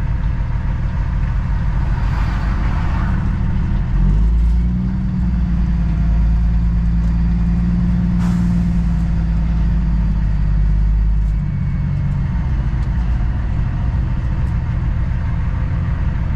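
Semi truck's diesel engine running at low road speed, heard from inside the cab. About four seconds in it pulls harder with a steady drone, and it eases back off a little past the middle. There is a short hiss twice.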